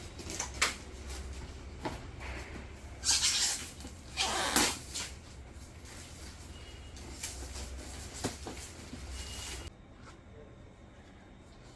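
Packaging being handled during an unboxing: scattered clicks and knocks, and two short ripping or scraping noises about three and four and a half seconds in, over a low steady hum.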